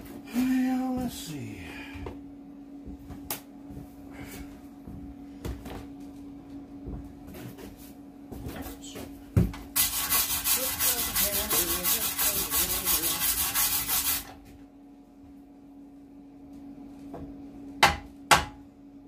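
Hand wire brush scrubbing the freshly welded steel mower deck with rapid back-and-forth strokes for about four seconds, cleaning up the welds. A few sharp knocks come near the end, over a low steady hum.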